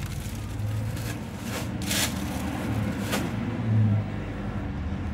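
A steady low rumble of background road traffic, with two brief crinkles of a plastic bag of fish being handled, about two and three seconds in.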